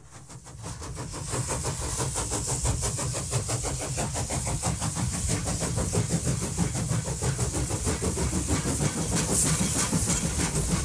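A loud, steady engine-like mechanical running sound with a rapid, even pulse and a hiss on top, fading in over the first second.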